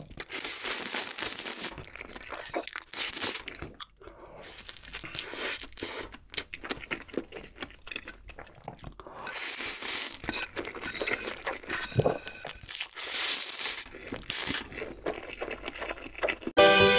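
A person slurping and chewing noodles, with several long, noisy slurps between stretches of chewing. Guitar music starts suddenly near the end.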